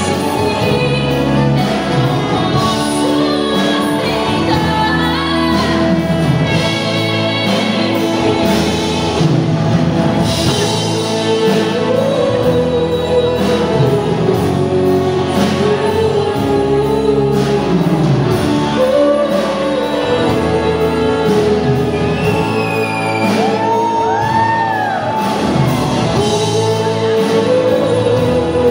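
A woman singing a sertanejo love song live into a microphone, backed by a band of keyboard, drums and guitars.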